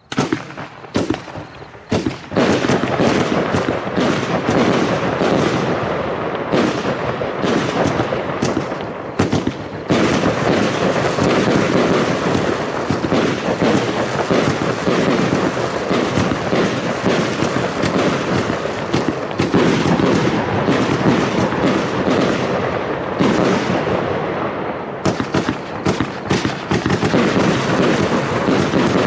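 Fireworks cake (battery) firing: a few separate shots in the first two seconds, then a continuous rapid barrage of sharp bangs and crackling.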